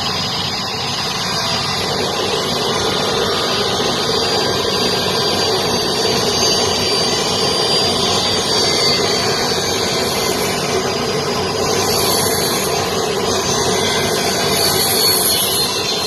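Industrial wood-cutting saw running steadily while a board is fed through it: dense machine noise with a thin, steady high whine over it.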